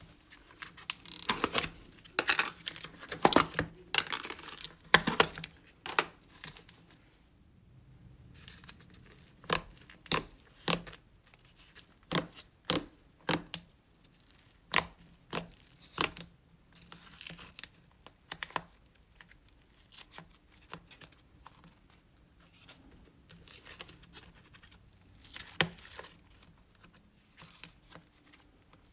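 Hands squishing, stretching and poking slime, making sharp crackling pops and sticky tearing sounds. The pops come thick and fast at first, then singly about twice a second, then fainter and sparser.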